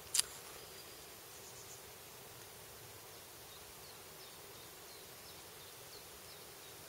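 Faint, steady outdoor background hiss with a few faint, short, high chirps in the middle stretch. A brief click, like a mouth sound, comes just after the start.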